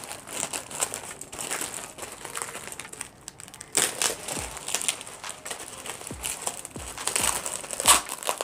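Thin clear plastic bag crinkling and rustling as hands pull and tear it open, with a few dull handling bumps in the second half.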